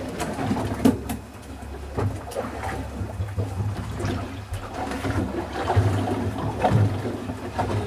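Boat engine running with a steady low hum, over water sloshing and trickling, with a few scattered knocks and clicks.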